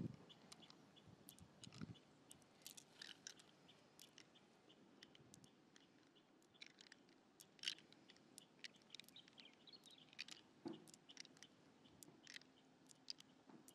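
Faint, irregular small wet clicks and squelches as fingers probe the soft flesh of an opened pearl mussel and pick out pearls.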